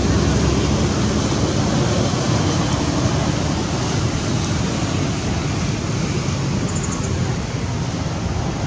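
Steady rushing outdoor background noise, heaviest in the low end, with no distinct events.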